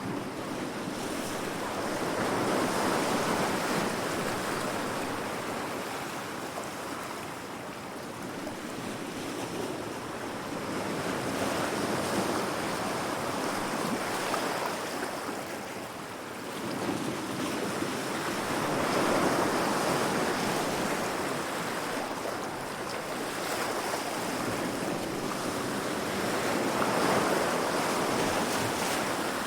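Heavy ocean waves breaking against rocks: a continuous rush of surf that swells and fades every several seconds as each wave comes in.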